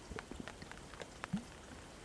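Scattered raindrops and drips ticking irregularly, with one louder, hollow drop a little past halfway.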